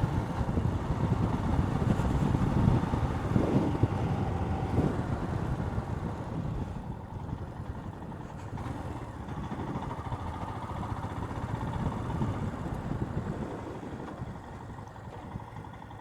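Royal Enfield Himalayan's single-cylinder engine running as the motorcycle is ridden, mixed with wind rumble, getting quieter over the second half as the bike eases off.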